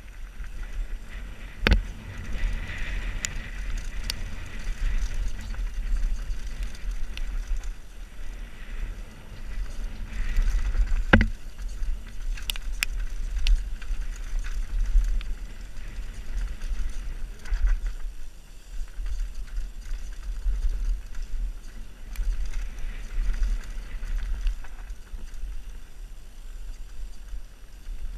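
Scott Gambler downhill mountain bike ridden fast down a dirt trail, heard from a helmet camera: wind rumble on the microphone over tyre noise and the rattle of the bike. Sharp knocks from bumps hit about two seconds in and again about eleven seconds in.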